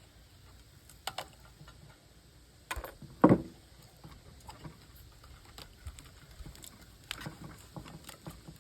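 Scattered clicks, clinks and knocks of hand tools and loose parts being handled while an old CRT television is taken apart, with one louder knock about three seconds in.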